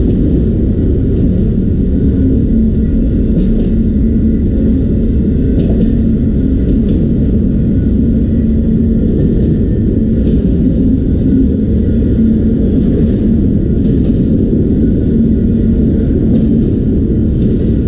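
CPKC autorack freight train rolling past: a steady, heavy rumble with a low engine drone and scattered faint clicks, holding even throughout.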